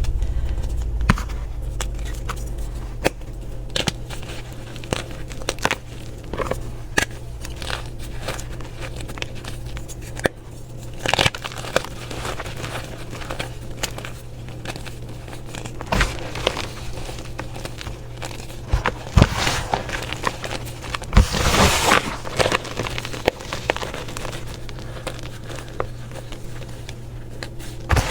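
Crunchy slime being pressed and played with by hand, giving scattered sharp crackles and pops, with a denser burst of crackling about two-thirds of the way through. A faint steady hum lies underneath.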